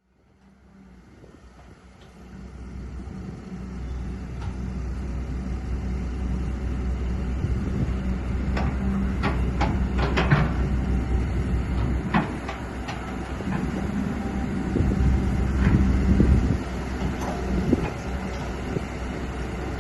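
Hydraulic excavator at work digging in mud: steady diesel engine rumble, with a few sharp metal clanks through the middle. The sound fades up over the first few seconds.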